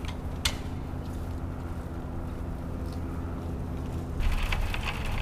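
A steady low hum with a single click about half a second in; about four seconds in, rain starts pattering on a nearby surface.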